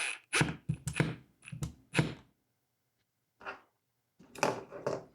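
A string of short knocks and clicks from handling a drill and screws against a drywall patch. About seven come close together in the first two seconds, one comes later and a small cluster comes near the end.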